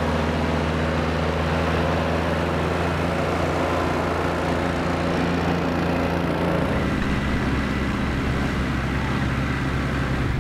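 Compact utility tractor engine running steadily as it tows a water tank wagon. Its note changes about two-thirds of the way through.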